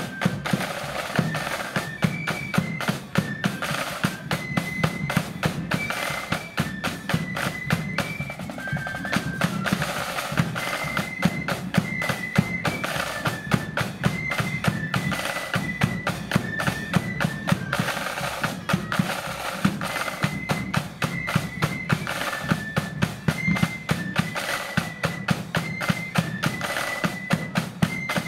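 Blood-and-thunder marching flute band playing a tune: the flutes carry a high melody over rapid snare drumming and a steady bass drum beat.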